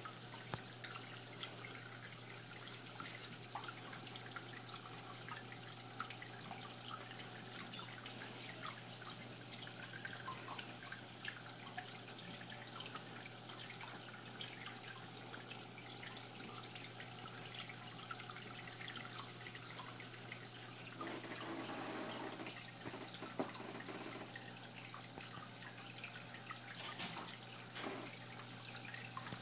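Water trickling and dripping in a planted paludarium, with many small scattered drips over a steady low hum.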